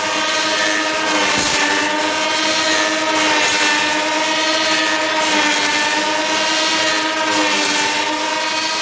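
Wooden handle lathe machine running, a steady whine with many overtones over a high hiss, its pitch and loudness wavering slightly every second or two.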